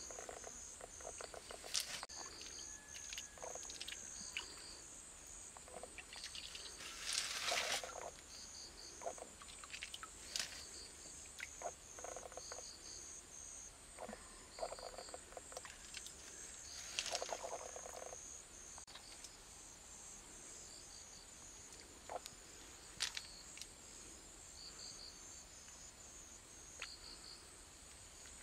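Insects chirping in a steady run of short, evenly repeated high-pitched pulses, with now and then a splash and slosh of shallow stream water as hands search the streambed for water snails; the loudest splashes come about a quarter and about three-fifths of the way through.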